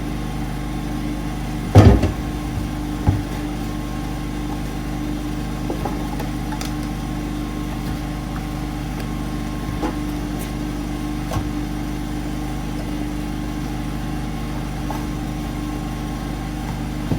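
A steady mechanical hum with a few fixed tones runs throughout. A sharp knock comes about two seconds in, the loudest sound here, followed by a lighter knock a second later and a few faint clicks.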